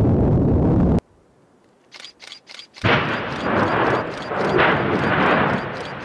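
Volcanic eruption: a deep rumble from an ash explosion cuts off about a second in. After a brief silence, rapid sharp pops come several times a second, then the loud rushing and crackling of a lava fountain throwing out spatter, with the pops continuing.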